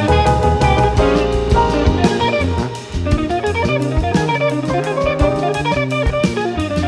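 Live jazz quintet playing a waltz, with guitar and drum kit prominent over the bass.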